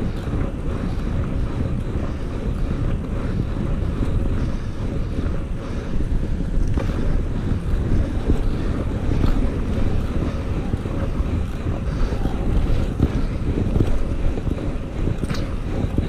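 Wind buffeting the microphone of a bicycle riding along a road at speed: a steady low rumble that rises and falls in gusts.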